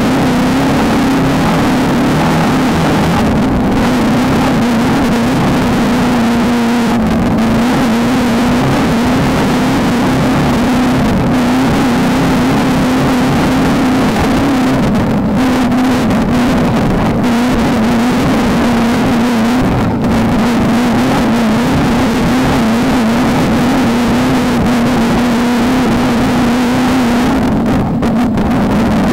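A Volkswagen Beetle-based desert race car's engine running hard at a nearly constant, steady pitch, over a dense rush of wind and road noise, with the top end easing briefly a few times.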